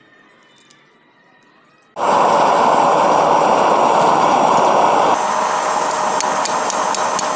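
A loud, steady machine noise, a rushing hiss with a hum, cuts in abruptly about two seconds in after a quiet start with a couple of faint clicks. It drops a little and changes character about three seconds later and keeps running.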